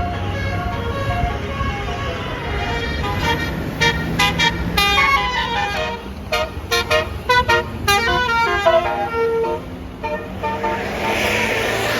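Tour bus's basuri 'telolet' multi-tone horn playing a quick melody of short stepped notes, most busily in the middle, over the low running of a bus engine.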